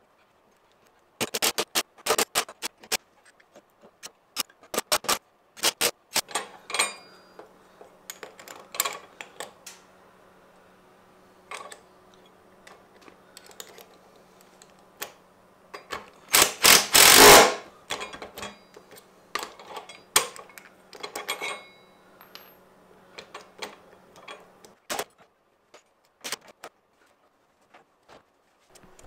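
Metal hardware of retractable workbench casters being fitted: scattered sharp clicks and clinks of bolts, nuts and a spanner, with one loud rattling burst lasting about a second around the middle.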